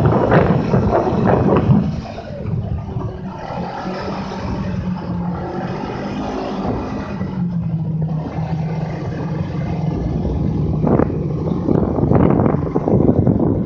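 Snowmobile engine running, its note steady and then easing slightly lower through the middle, with loud rough rushing noise at the start and again near the end.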